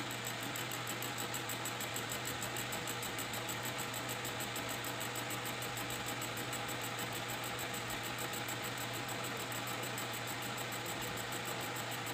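Metal lathe running steadily as its tool faces a square metal plate turning in the chuck, an interrupted cut across the plate's corners. A steady motor hum under an even hiss with a fast, regular pulsing.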